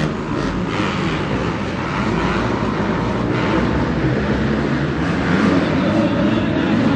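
Several 250-class motocross bike engines racing inside an arena, their pitch rising and falling as the riders work the throttle through the track's turns and jumps.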